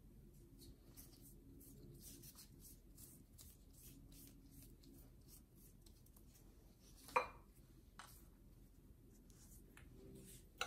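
Faint, soft strokes of a pastry brush spreading melted butter over a sheet of phyllo dough, with one sharp knock about seven seconds in and a smaller one near the end.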